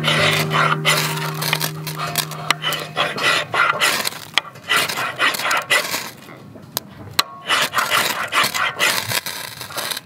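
A knife shaving thin curls off a dry softwood stick to make a feather stick, heard as a run of short, irregular scraping strokes.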